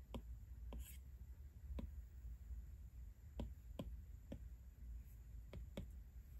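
Light, irregular taps of a stylus on an iPad's glass screen, about eight in all, with one brief scrape just before the one-second mark, over a steady low hum.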